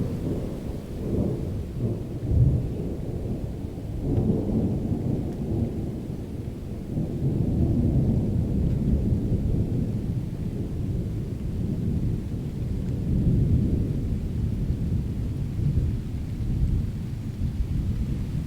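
Thunder rumbling low and continuously, swelling and easing several times, with a brief louder peak about two and a half seconds in.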